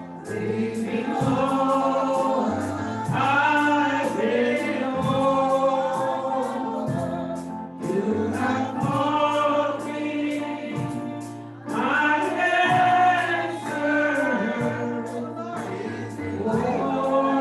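Gospel music with a choir singing over a steady beat and bass.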